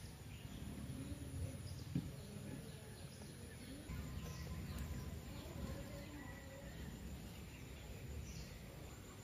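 Faint outdoor background: a low steady rumble with a few faint bird chirps, and a single sharp click about two seconds in.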